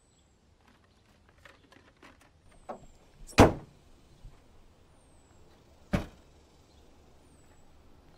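A car hood slammed shut, then a car trunk lid slammed about two and a half seconds later. The first slam is the louder, and lighter clicks and knocks come before it.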